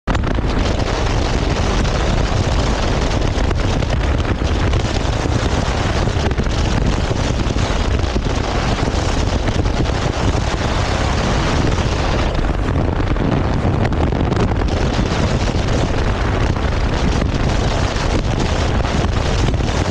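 Steady, loud wind rush on a helmet-mounted GoPro's microphone while riding a Triumph Tiger 1200 motorcycle, with heavy low rumble.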